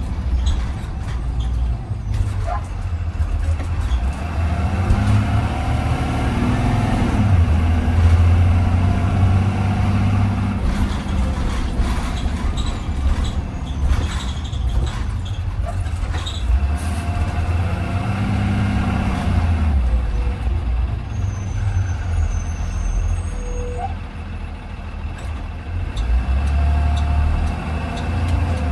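A Blue Bird Vision school bus heard from inside while driving: the engine drones low and rises in pitch several times as the bus pulls away and moves through its gears, with body rattles and road noise throughout.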